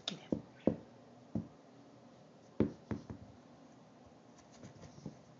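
Several soft, irregular knocks and thumps in the first three seconds, with a few fainter taps near the end.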